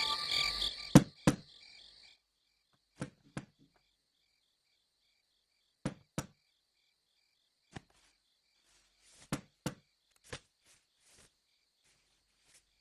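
Knocking on a wooden door, sharp knocks mostly in pairs a few seconds apart. Faint cricket chirring runs underneath.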